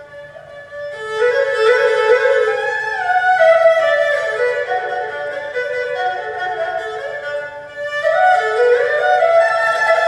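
Erhu, the two-stringed Chinese bowed fiddle, playing a solo melody of sliding, stepping notes. It starts softly and grows louder about a second in, dips briefly near eight seconds, then swells again.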